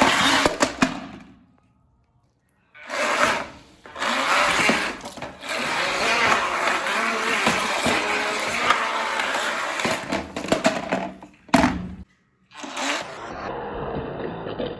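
Small remote-control electric speed boat's motor and propeller churning water in a small water tank, in a few short spurts and then a steady run of about six seconds, with a sharp knock near the end.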